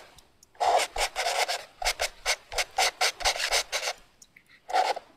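Pen writing on paper: a quick run of short strokes, several a second, from about half a second in to about four seconds, then one more stroke near the end.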